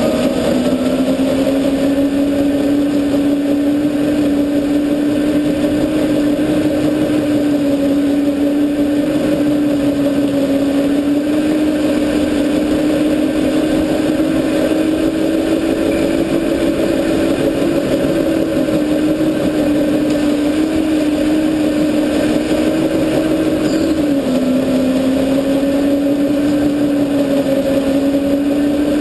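Go-kart motor running steadily under way, heard from on board, one sustained tone that wavers slightly and dips in pitch about 24 seconds in, over rumble and wind noise.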